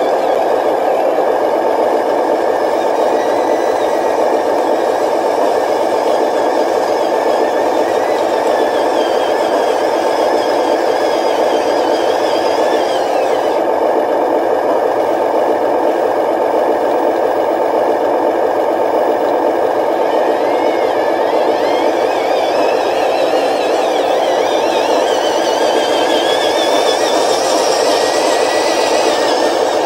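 Radio-controlled model dump trucks driving. Their drive produces a steady mechanical drone with a higher whine that rises and falls.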